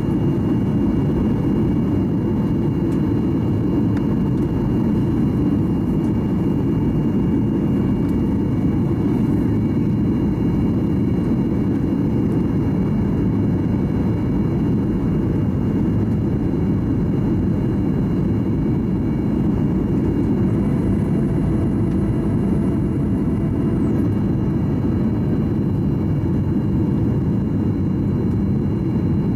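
Steady low rumble of engine and airflow noise inside the passenger cabin of a Boeing 737-800 in flight, unchanging throughout.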